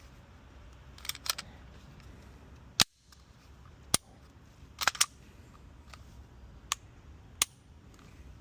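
A pistol giving a series of sharp, irregularly spaced cracks, about eight in all; the loudest comes about three seconds in.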